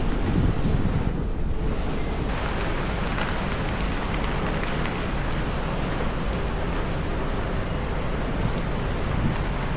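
Heavy rain falling steadily on the street, a constant hiss. There is low gusty rumble in the first two seconds, then the rain evens out.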